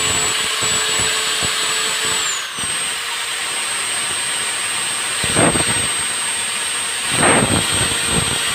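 Brand-new electric angle grinder running with no disc and no load, a steady high-pitched whine. About two seconds in it is switched off, the whine starts to fall as it spins down, and then it is switched straight back on. Two brief louder noises come over it about five and seven seconds in.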